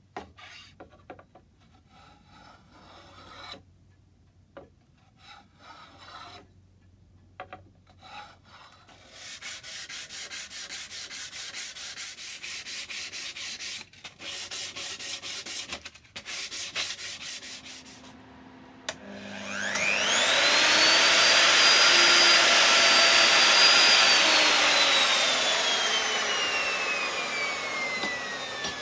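Hand rasping or sanding of oak: scattered scrapes, then several seconds of rapid, even strokes. About twenty seconds in, an electric power tool is switched on; its whine rises fast, holds, then falls slowly as the motor winds down.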